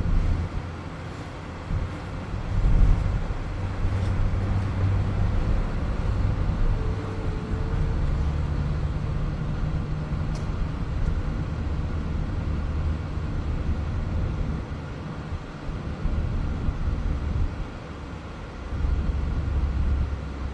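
Van engine and road noise heard from inside the moving van: a steady low rumble whose engine note shifts in level, growing louder about three seconds in and again near the end.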